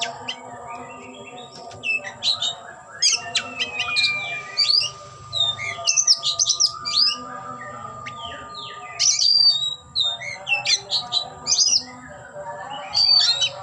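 Oriental magpie-robin (kacer) in full song: bursts of rapid whistled notes, sweeps and chattering phrases, with short pauses between them.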